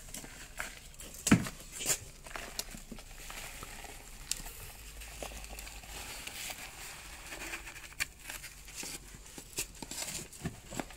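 Water poured from a plastic container onto the freshly potted cactus's soil, giving a soft pattering hiss, with small handling clicks and a sharp knock about a second in.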